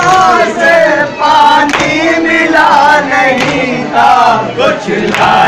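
A group of men chanting a noha, a Muharram lament, together in a loud, continuous chant.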